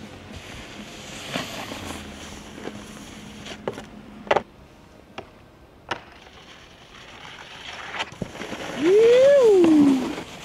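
A snowboard knocking onto and along a concrete ledge, several sharp clacks spread through the first eight seconds. Near the end comes a loud shout, one drawn-out call rising and then falling in pitch.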